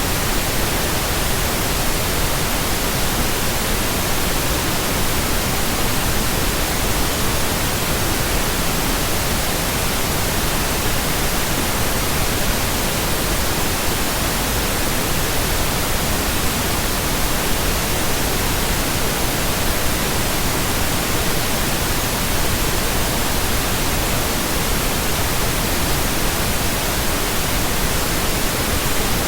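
Steady synthetic pink noise: an even, unchanging hiss.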